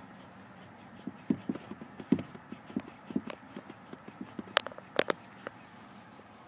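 A Cole Haan shoe pumping a car's accelerator pedal: an irregular run of soft knocks, about three or four a second, then a few sharper clicks about five seconds in. No engine running or revving is heard.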